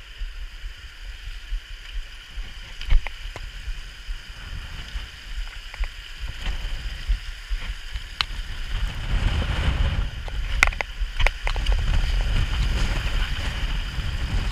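Wind buffeting the microphone with a gusty low rumble that strengthens from about nine seconds in, with a few scattered sharp clicks.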